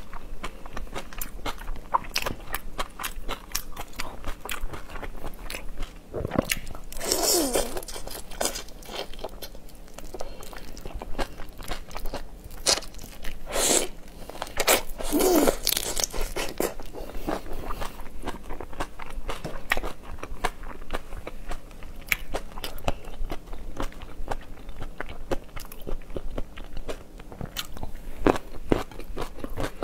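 Close-miked eating of whole raw marinated shrimp: shells crunching and cracking in many small bites, with chewing. Two louder, longer sucking sounds come about seven and fifteen seconds in.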